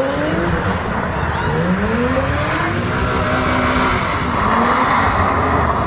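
Several drift cars sliding together, their engines revving up and down, with tyre squeal and skidding. The revs climb about a second and a half in.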